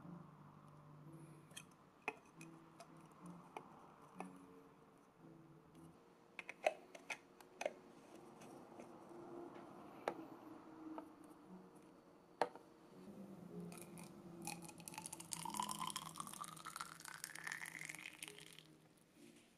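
Plastic and metal parts of a Kompresso hand espresso maker clicking and knocking as they are fitted together, then water poured into its clear cylinder, the filling sound rising steadily in pitch over about five seconds as the column fills.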